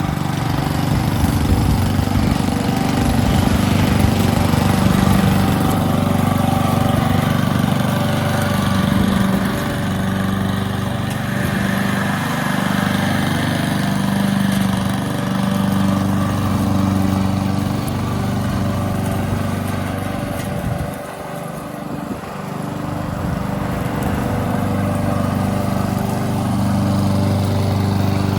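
21-inch Honda walk-behind lawn mower running steadily as it picks up fallen leaves. Its sound drops briefly about three-quarters of the way through, then comes back.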